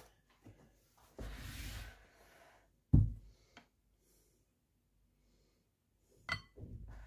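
Kitchen bowls being handled on a worktop: a brief rustle, then one sharp, loud knock as a bowl is set down about three seconds in, and a clatter near the end as the Thermomix mixing bowl and spatula come over the glass serving bowl.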